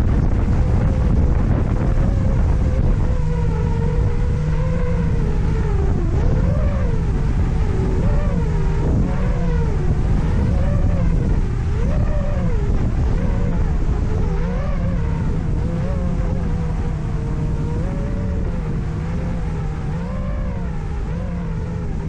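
FPV drone motors whining, the pitch rising and falling over and over as the throttle changes, with strong wind buffeting the microphone underneath.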